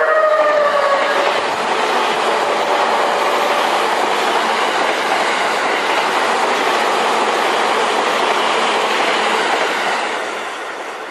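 E001 series Train Suite Shiki-shima pulling out of the station: the last note of its music horn falls away in the first second, then a steady loud rush of the train running over the rails for about ten seconds, fading near the end.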